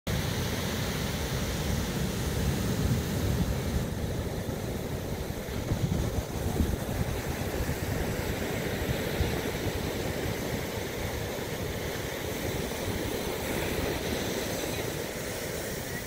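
Big ocean surf breaking: a steady, low rumbling wash of waves that swells a couple of seconds in and eases off slightly over the second half.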